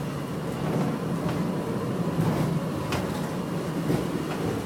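Airport interterminal people-mover train running, heard from inside the car: a steady rumble with a few light clicks along the way.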